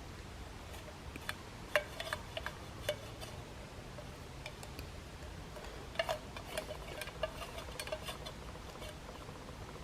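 Cutlery clicking and tapping against a metal camping dish during a meal, with a short metallic ring after several taps. The clicks come in two irregular clusters, about a second in and again about six seconds in.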